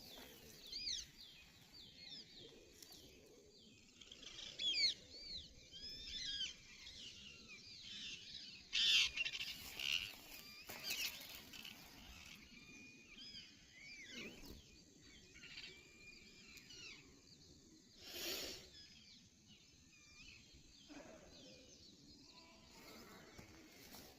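Small birds chirping and calling outdoors, many short quick notes sliding up and down in pitch, busiest in the first half. A few brief bursts of noise break in, one about nine seconds in and another about eighteen seconds in.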